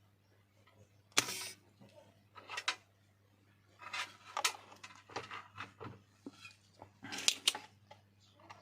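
A small hand tool scraping and clicking in short, irregular bursts as a phone's charging-socket hole is cleaned out, over a low steady hum.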